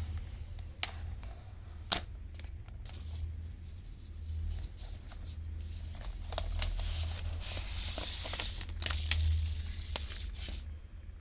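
Hands handling packaging during an unboxing: a few sharp clicks and taps, and a stretch of paper or plastic rustling and crinkling near the end, over a low steady hum.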